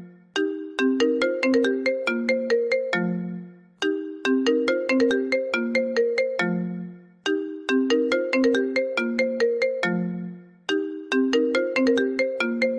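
A phone ringtone melody: a quick phrase of bright, sharply struck notes ending on a lower, longer note, looping about every three and a half seconds, four times.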